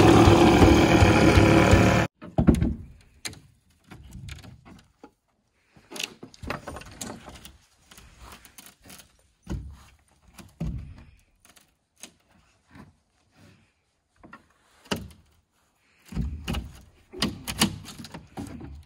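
Scattered wooden thunks and knocks of cabin framing and siding work, in irregular clusters with quiet gaps between, the densest near the end. Background music cuts off suddenly about two seconds in.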